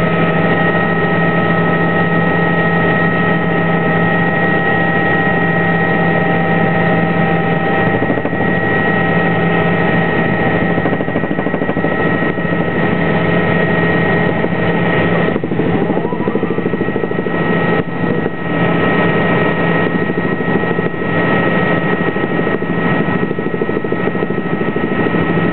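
Helicopter in flight heard from inside the cabin: loud, steady engine and rotor noise with a steady high-pitched whine over it.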